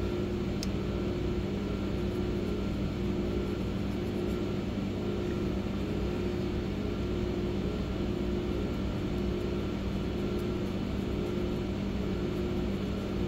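Milling machine running steadily with a drill bit in its spindle: an even, continuous hum.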